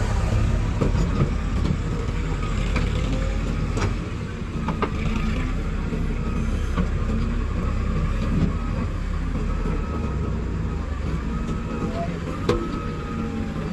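Heavy diesel machinery engine running steadily, with a few sharp clanks.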